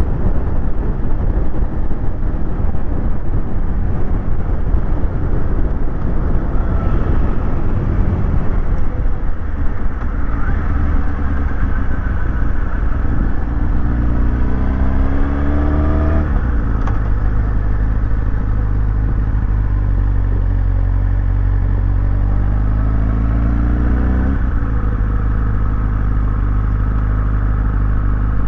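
Sport motorcycle engine pulling hard under acceleration, with wind buffeting on the helmet microphone. The rumble of wind dominates at first, then the engine note climbs steadily through the revs, drops at an upshift about halfway through, climbs again, and shifts once more near the end.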